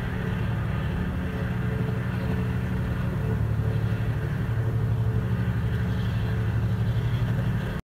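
Ferry engine droning steadily, a deep hum with a faint hiss above it; the sound cuts off suddenly near the end.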